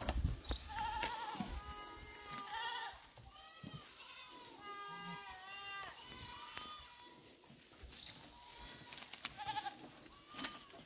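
Several goats bleating, with overlapping wavering calls for the first several seconds and a couple of shorter bleats near the end.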